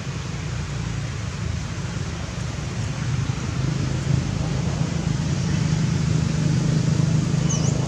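Steady low rumble with a hum in it, growing a little louder after the middle, and a short high chirp near the end.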